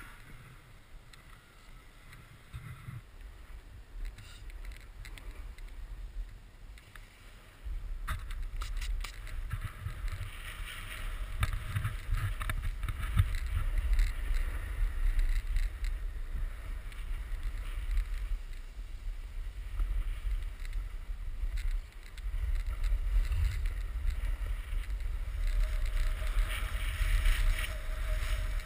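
Snowboard sliding and scraping over packed snow during a downhill run, with wind rumbling on the camera microphone. It is quieter at first, the rumble comes in suddenly about seven or eight seconds in, dips briefly later on, and the scraping hiss swells in stretches as the board turns.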